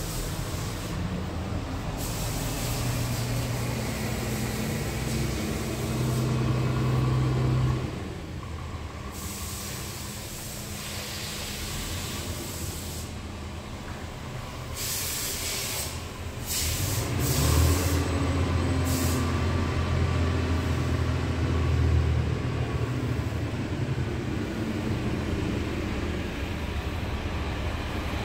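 Scania R tractor unit's diesel engine idling, heard from inside the cab as a steady low hum. A few short bursts of air hissing come about halfway through, and the engine is louder after them.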